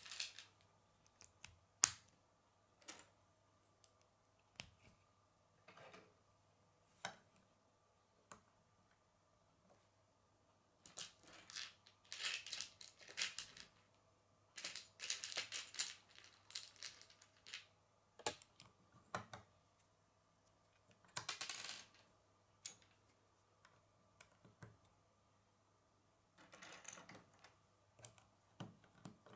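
Plastic K'nex pieces clicking and clattering as they are handled and snapped together by hand: scattered sharp clicks, with busier stretches of clattering through the middle and near the end.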